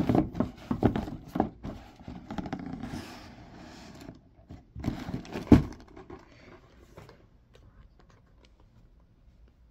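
Cardboard model-kit box being handled as its lid is slid back on and pressed down: scraping and rubbing of cardboard with a run of small knocks, and one louder knock about five and a half seconds in.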